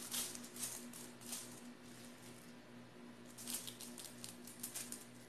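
Aluminum foil crinkling and a spoon scraping against it as ground-pork mixture is pressed and spread flat on the foil, in irregular crackly scrapes.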